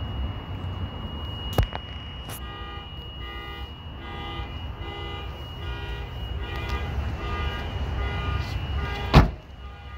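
An electronic alarm beeping in a fast repeating pattern over a steady high whine, starting a couple of seconds in. A single heavy thud sounds near the end.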